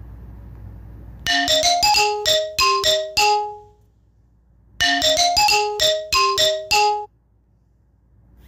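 A short piano-like melody of about eight quick notes, played twice with a pause between.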